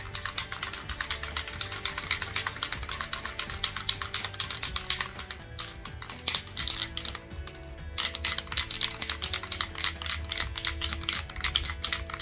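Aerosol spray paint can being shaken, its mixing ball clattering in rapid, irregular clicks that let up for a couple of seconds about halfway through before starting again. Background music with a steady bass plays underneath.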